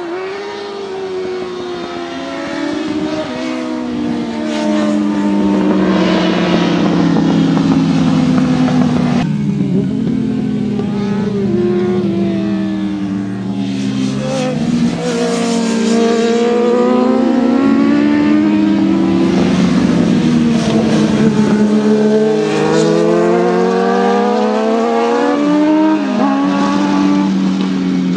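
Several racing sport motorcycles running hard around the track at once, their engines revving up and down through the gears. The pitch rises and falls as the bikes approach and pass, with sharp drops at gear changes, one clearly about nine seconds in.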